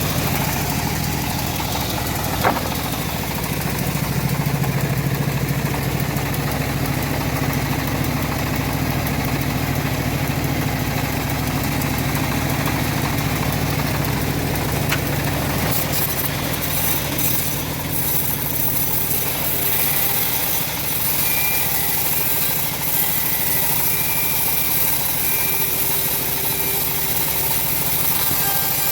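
The engine of a homemade bandsaw sawmill running steadily, with two brief sharp clicks.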